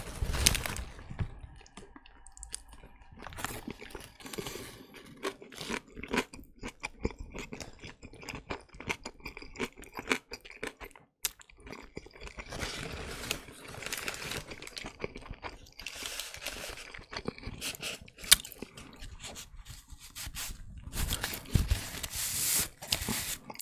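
Close-miked bite into a Burger King veggie burger followed by steady chewing, with many wet mouth clicks and crunching. Near the end, a napkin is rubbed over the mouth right by the microphone, the loudest sound.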